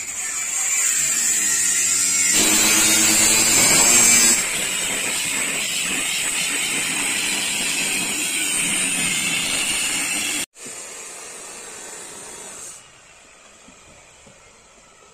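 Handheld electric sander grinding the painted body panel of a coach, a steady high whine over grinding noise. It cuts off abruptly about ten seconds in, leaving a quieter stretch.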